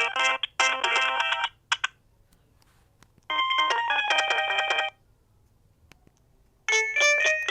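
Alcatel OT-E159a mobile phone playing its built-in polyphonic ringtones, several notes at once. One tune ends about a second and a half in, a short melody plays for about a second and a half in the middle, and another tune starts near the end, with silent pauses between them.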